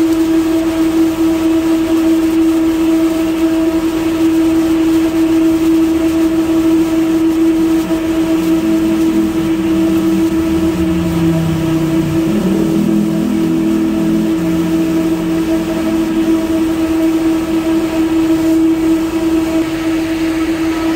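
Steady, loud hum of an electric fan motor at a charcoal grill, holding one pitch throughout; a lower rumble joins it from about nine seconds in and fades after about sixteen seconds.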